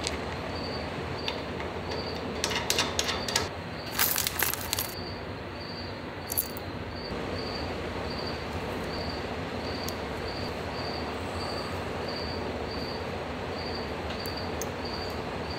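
Small metal snap fasteners clicking and clinking as they are handled, in a cluster of sharp clicks about two and a half to five seconds in and once more a little later. Under them runs a steady shop hum with a faint high pip repeating about twice a second.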